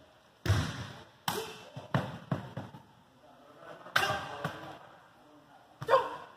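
A series of sharp thuds echoing around a gymnasium, from a katana cutting rolled tatami-mat targets and the severed pieces dropping and bouncing on the wooden floor. Several knocks come in quick succession about two seconds in, and there are louder single ones near four and six seconds.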